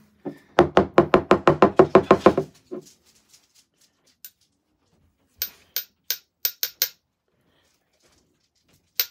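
A hot sauce bottle of thick, stuck sauce shaken and knocked hard, a quick run of about a dozen heavy thuds, to work the sauce loose. A few seconds later, about six sharp, light clicks as the bottle is tapped while tipped over a spoon.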